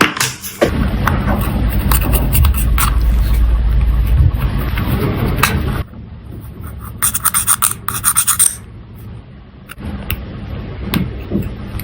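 Hand tools scraping and rubbing for about five seconds, then a quick run of small sharp clicks.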